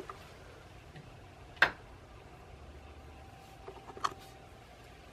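Two sharp clicks about two and a half seconds apart, the first much the loudest, with a few softer ticks just before the second. A faint steady high tone comes in about halfway through.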